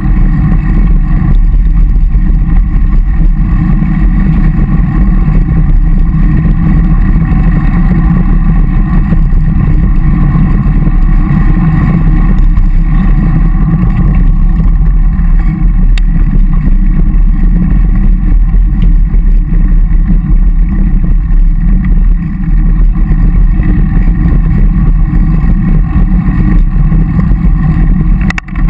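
Steady, loud wind rumble and road noise on the microphone of an action camera carried on a moving road bike.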